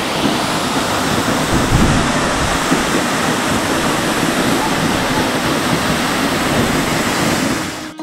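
Waterfall pouring: a loud, steady rush of falling water that cuts off abruptly at the very end.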